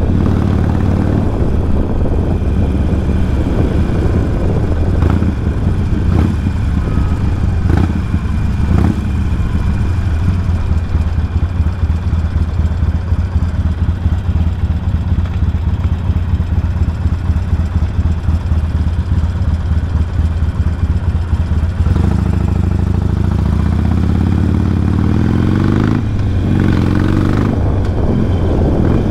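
Harley-Davidson motorcycle's V-twin engine running steadily under way, then rising in pitch as it accelerates near the end.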